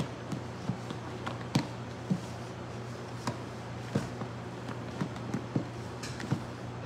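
Spatula folding whipped egg whites into chiffon batter in a stainless steel bowl: irregular light clicks and scrapes as the spatula strikes the bowl, over a steady low hum.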